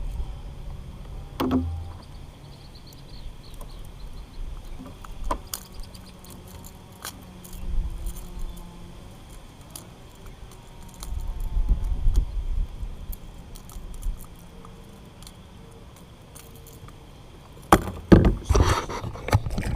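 Gusts of wind rumbling on the microphone, with scattered light clicks and rattles throughout and a burst of louder knocks and clatter near the end.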